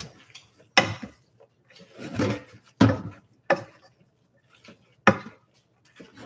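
A spatula scraping and knocking against a large pan as spaghetti is stirred through egg-and-cheese sauce, in about half a dozen irregular strokes. The stirring is kept up so the egg turns creamy instead of scrambling.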